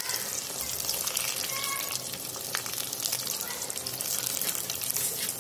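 Stuffed bitter gourds deep-frying in hot mustard oil in a steel kadhai: steady sizzling with fine crackling of the bubbling oil as the gourds go in.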